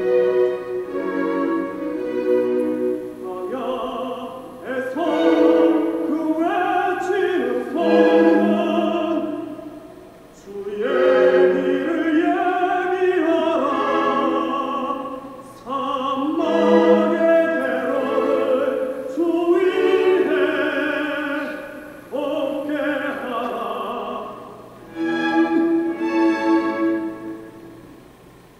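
Classical vocal music: operatic-style singing with orchestral accompaniment, in long phrases with short breaks, fading near the end.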